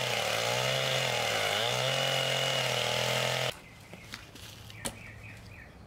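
Gas chainsaw running at speed as it cuts into the end of a log, its pitch dipping briefly under load about a second and a half in; it cuts off abruptly about three and a half seconds in. A few faint clicks and a short chirping follow near the end.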